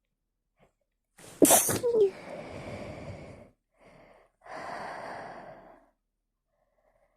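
A woman sneezes once, loud and sharp, with a voiced 'achoo' falling in pitch, about a second in. Breathing follows: a long exhale, then two more breaths.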